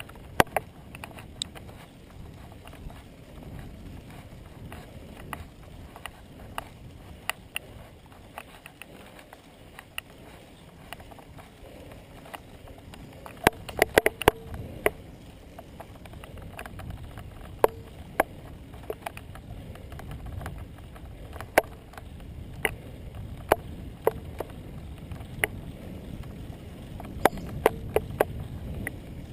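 Road bicycle riding on a paved lane: a steady low rumble of tyres and wind, with irregular sharp clicks and rattles over bumps, a quick cluster of them about fourteen seconds in.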